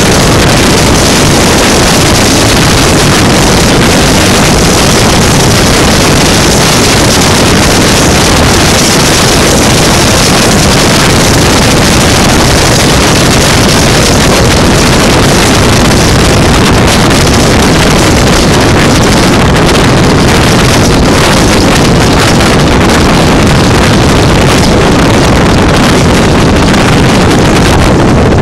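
Loud, steady rush of wind buffeting a microphone held out of a speeding express passenger train coach, over the rumble of the coach's wheels on the rails.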